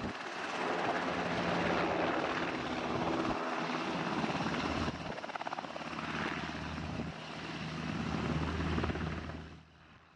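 UH-60 Black Hawk helicopter running close by low over the ground, its twin turbine engines and main rotor making a loud, dense rush with a steady rotor beat. The sound fades away near the end.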